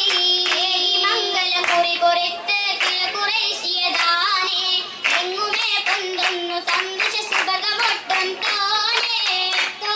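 Oppana performance: female voices singing a Mappila song, with steady rhythmic hand claps from the dancers keeping time.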